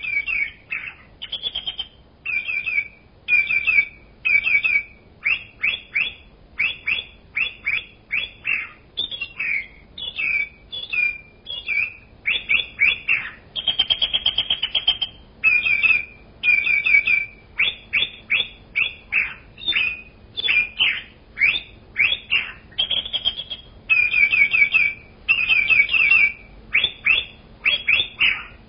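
A bird calling over and over in quick runs of short, sharp chirps, with now and then a longer held note.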